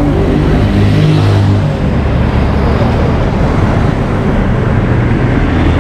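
Street traffic: motor vehicle engines running close by, their pitch shifting slightly, over steady road noise.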